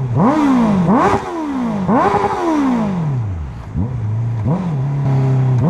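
Honda CBR650F inline-four engine being revved through its exhaust: three quick sharp revs, each falling back, then a few smaller blips of the throttle before it settles to idle.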